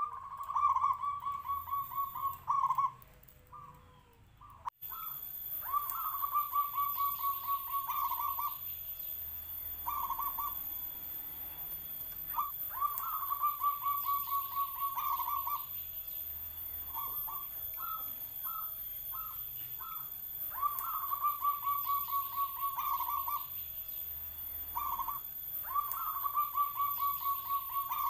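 Local zebra dove (perkutut) singing its big-voiced coo: a few short opening notes, then a long, rapid, stuttering coo, repeated about every four to five seconds.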